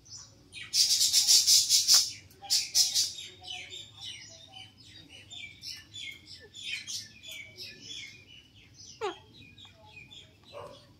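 Alexandrine parakeets squabbling in their cage. Two loud, harsh screeches come in the first three seconds, followed by a run of short, high chattering chirps and a quick falling call near the end.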